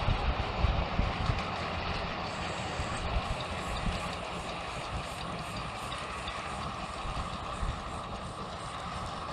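Miniature railway train with two locomotives double-heading, running at a distance. Wind buffets the microphone with low gusts, strongest in the first couple of seconds.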